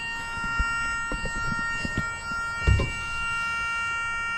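A steady electronic alarm tone from a boat's engine instrument panel, several pitches held together without change, sounding as soon as the panel is switched on. A few low knocks and bumps come over it.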